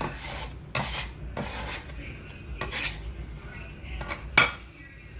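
Hands kneading a sticky ball of bread dough on a floured granite countertop: irregular rubbing and scraping strokes, with one sharp knock about four seconds in, the loudest sound.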